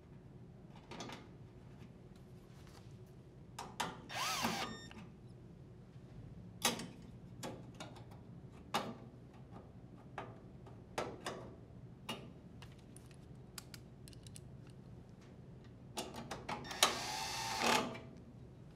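Drill driver driving screws into the dryer's sheet-metal top plates: two short runs of the motor, rising and falling in pitch, about four seconds in and again near the end. Light clicks and taps come in between.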